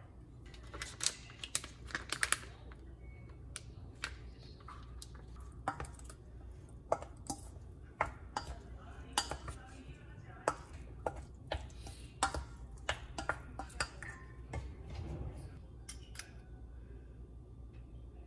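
A serving spoon clinking and scraping against a stainless steel mixing bowl as fusilli is tossed with pesto and olive oil: irregular sharp clicks, often several a second, over a low steady hum.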